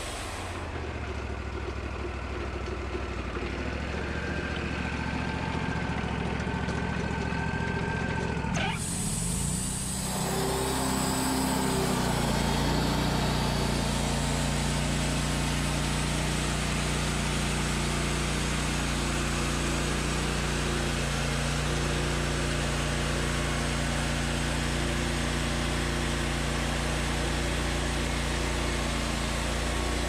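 Wood-Mizer portable band sawmill running, its engine and band blade going steadily while it saws boards from cants. There is a thin whine for the first nine seconds. The sound changes abruptly about nine seconds in and becomes louder and fuller as the saw head travels along the cut.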